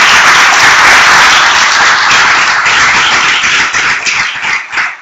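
Audience applauding: dense, steady clapping that thins out and dies away near the end.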